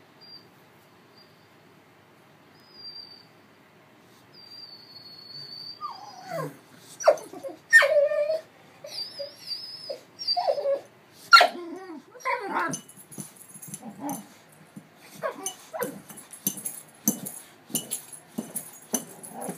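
A boxer dog whining for food. Thin, high whines come first, then louder whimpers and yelps from about six seconds in. Through the second half there is a rapid run of clicks and knocks.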